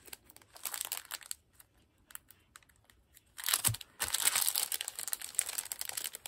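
Plastic packaging wrap crinkling and crackling under fingers picking at it, trying to find and grab the edge to open it. At first there are scattered small crackles, then from a little past halfway the crinkling is louder and continuous, with a soft knock just as it picks up.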